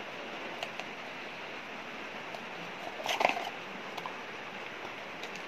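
Light clicks and taps from handling a small cardboard smartwatch box while the watch is pulled out of its cutout, over a steady hiss. About three seconds in, a brief call lasting under half a second, the loudest sound in the stretch.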